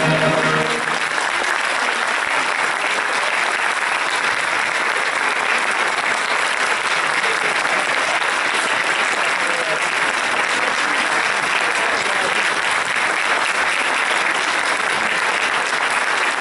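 Concert audience applauding steadily. A wind band's final brass chord cuts off within the first second, and the clapping carries on alone after it.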